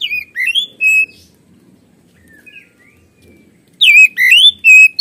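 Male Oriental magpie-robin (kacer) singing: two loud bursts of quick, varied whistled notes that swoop up and down, one at the start and one from about four seconds in, with a few soft chirps between.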